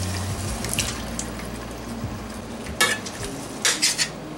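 Buttermilk and paneer cubes poured from a bowl into a stainless steel sauté pan of simmering vegetables. Then a slotted metal spatula stirs and clinks against the pan several times, with a quick run of clinks near the end.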